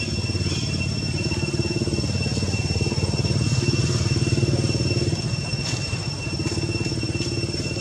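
A small engine running steadily, a pulsing low drone that swells slightly midway, with a thin, steady high-pitched whine above it.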